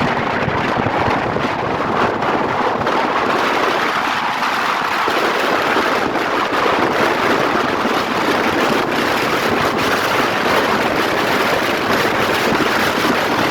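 Steady rush of wind noise over the microphone mixed with road and traffic noise while moving along a highway.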